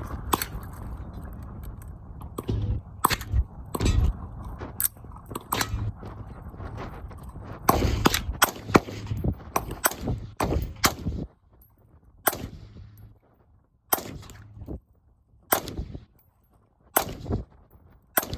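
Gunfire: many sharp shots in quick succession over a steady background rush for the first eleven seconds or so, then single shots about every second and a half.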